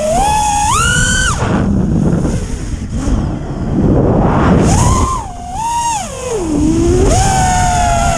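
A 6S FPV racing quadcopter's brushless motors and propellers whine, the pitch swooping up and down with throttle. The whine drops away for about three seconds in the middle, when the throttle is off, then returns, dips low and climbs again. Wind rush on the quad's own camera microphone runs under it.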